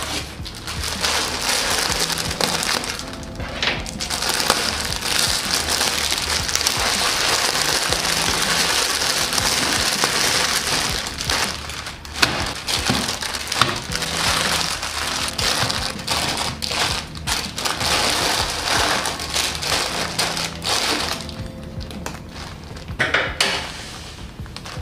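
Plastic instant-noodle packets crinkling and rustling as they are handled and dropped into a plastic basket, with dense crinkling for about the first ten seconds and scattered rustles and light knocks after that, over soft background music.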